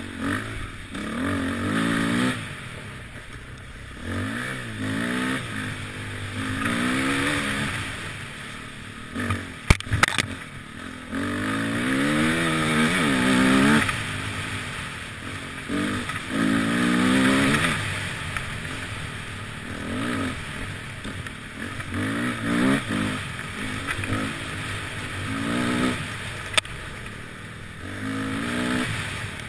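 Enduro motorcycle engine revving up and dropping back again and again as the rider throttles and shifts along a rough dirt track. There is a sharp knock about ten seconds in and a lighter click near the end.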